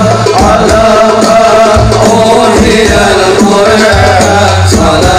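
Sholawat music from a hadrah group, with frame drums and hand percussion under a wavering melody line and held bass notes, and no words sung.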